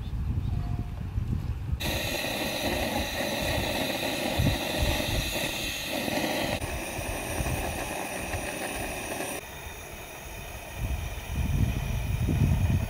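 Wind rumbling on the microphone. About two seconds in it gives way to a steady hiss of water heating in a frying pan on a portable gas stove, and near the end the wind rumble comes back.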